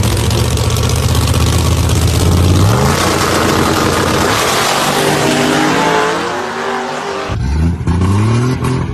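A car engine running loudly at a steady idle, then revving up in one long rising pull lasting about four seconds. After a sudden cut, another engine revs upward near the end.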